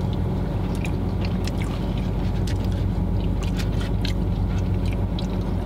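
Steady low hum of a car's idling engine heard inside the cabin, with scattered small clicks and smacks of chewing and handling food.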